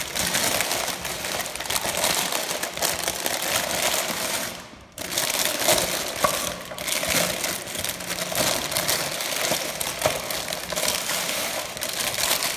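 Clear plastic packaging bag crinkling and rustling as hands handle it around a plastic toy dump truck, with a short pause about five seconds in.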